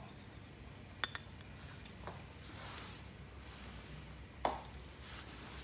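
Small stainless-steel cup clinking as it is handled: a sharp metallic clink with a brief ring about a second in, a quick second tap right after, then a few fainter knocks.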